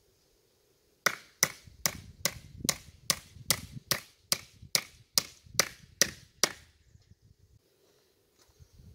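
A steady series of about fourteen sharp blows of a hand tool on wood, a little over two a second, stopping about six and a half seconds in, as a wooden field fence is mended.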